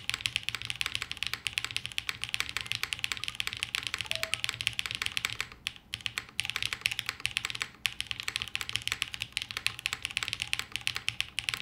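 Fast typing on a Martingale custom mechanical keyboard with Gateron Summertime linear switches and GMK keycaps on a plateless 1.6 mm PCB, a quick steady stream of keystrokes with a brief pause about six seconds in. It has a classic top-mount sound with a little resonance, but not a distracting amount.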